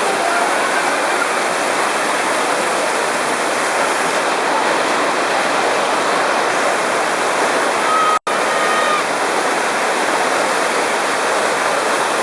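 Loud, steady rush of churning water on a river raft ride's rapids channel. The sound drops out for an instant about two-thirds of the way through.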